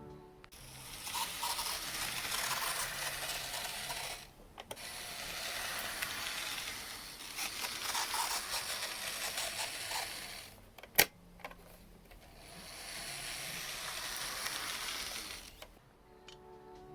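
Tomix EF81 N-gauge model locomotive running, its small drive mechanism giving off an abnormal squeaking, scraping noise, the fault the model has developed. The noise comes in three stretches with short pauses, and there is a sharp click about eleven seconds in.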